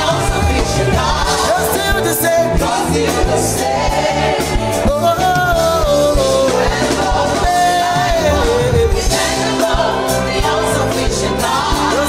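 Gospel worship song performed live: a group of singers over a band with electric guitar and saxophone, keeping a steady beat.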